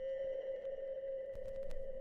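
Background music: a steady held electronic tone with a low rumble coming in about one and a half seconds in.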